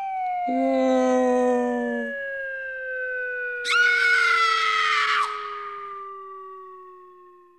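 Cartoon falling-whistle sound effect: one long whistling tone gliding steadily down in pitch and fading away as the figure drops. A shorter steady tone sounds under it for the first two seconds, and a brief scream cuts in about four seconds in.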